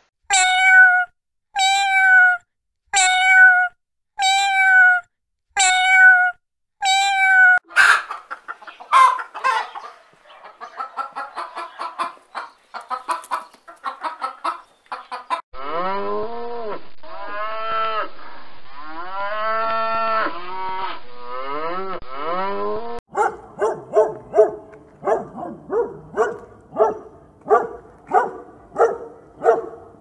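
A run of different animal calls: a call repeated about once a second, seven times, then a stretch of rapid short calls, then a calf mooing in long calls that rise and fall, then quick calls about twice a second.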